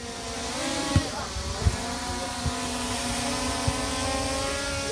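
Small camera drone's propellers buzzing, rising in pitch and growing louder about half a second in as it speeds up to lift off, then holding a steady whine. A few dull knocks sound under it.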